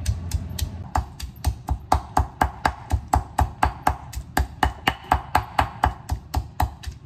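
Granite pestle pounding chilies and garlic in a granite mortar: a steady run of dull stone knocks at about four strikes a second, quickening slightly after about a second.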